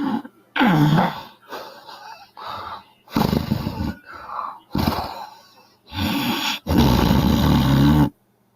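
A woman snoring loudly in a run of about eight harsh, irregular snores and snorts. The last and longest lasts over a second and cuts off suddenly.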